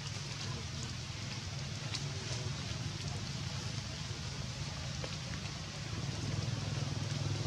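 An engine running steadily with a low, pulsing hum, getting louder about six seconds in, over an even faint hiss.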